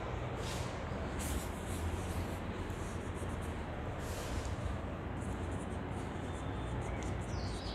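A chalkboard being rubbed out in a few broad wiping strokes, then chalk writing on the board in short scratchy strokes and taps from about five seconds in, over a steady background hiss.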